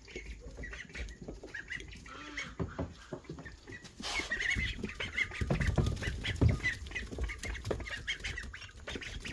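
A group of Khaki Campbell ducks feeding, with soft quacks and chatter over many quick clicks and knocks of bills working at food. The sound gets busier and louder about four seconds in.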